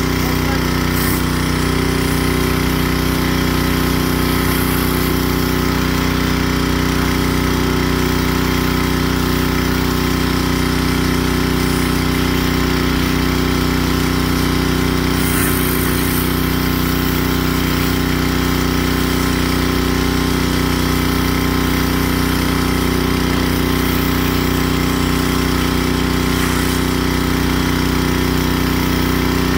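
Gas engine of a 3000 PSI pressure washer running at a steady, unchanging speed.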